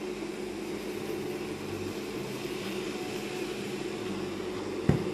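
Steady fan hum with a faint low drone and hiss. Near the end come two quick, sharp knocks, a utensil tapping the metal cooking pot.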